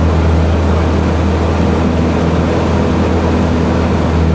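Open-cockpit biplane's piston engine and propeller running steadily in flight as a deep, even drone, heard from the cockpit with wind rushing past.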